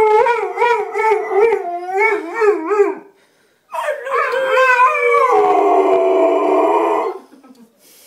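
Bullmastiff 'talking': a wavering, warbling howl for about three seconds, a short break, then a longer howl whose pitch drops partway through before it trails off.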